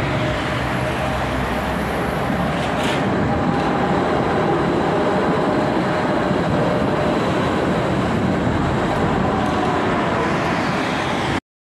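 Budapest Tatra T5C5 tram car running along the track: a steady rumble of wheels on rail with a faint steady whine over it and a short hiss about three seconds in. It cuts off suddenly near the end.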